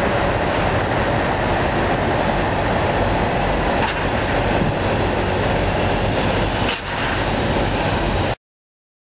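Steady roaring outdoor background noise with a few faint knocks. It cuts off suddenly near the end.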